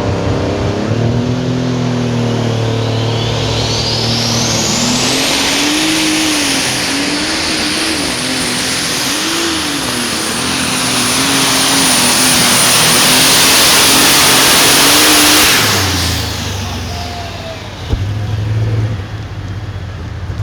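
A pulling vehicle's engine running hard under load, its note wavering, with a high whine that rises over a few seconds and then holds. The engine falls away near the end, and a sudden sharp crack follows shortly after.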